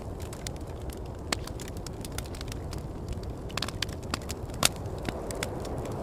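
Wood campfire crackling with scattered sharp pops, one louder pop about two-thirds of the way through, over a steady low rumble of wind.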